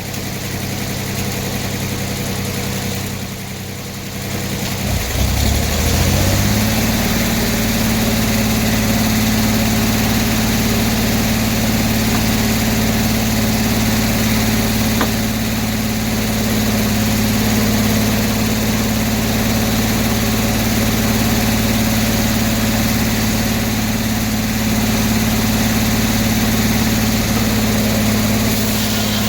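Sawmill's power engine running steadily, its speed climbing quickly about five seconds in and then holding level at the higher speed.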